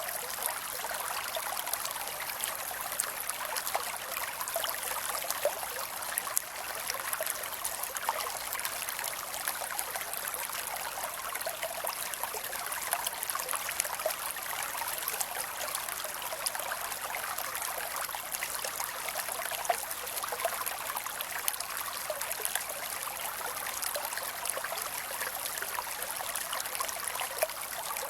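Shallow creek water running and trickling steadily, with many small splashes and bubbling ticks.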